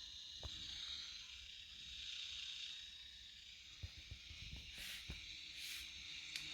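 Steady hiss of a simple direct-amplification radio receiver between stations, with a few small clicks and two short bursts of louder static a little after the middle.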